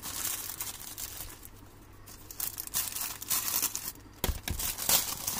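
Plastic seasoning sachets and packaging crinkling and crackling as they are handled, with a dull knock about four seconds in.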